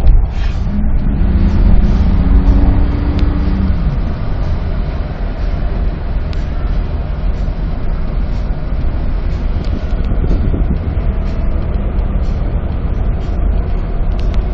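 Road and engine noise inside a moving car's cabin: a steady low rumble, with a humming tone for a few seconds near the start.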